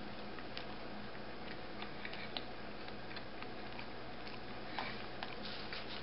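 A man chewing a mouthful of a biscuit sandwich: faint, irregular small clicks and smacks of the mouth over a steady room hiss, a few slightly stronger about five seconds in.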